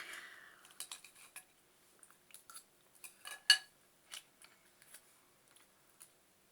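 Cutlery clicking and scraping against a dish while someone eats. There is a short scrape at the start, then scattered light clicks, the loudest about three and a half seconds in.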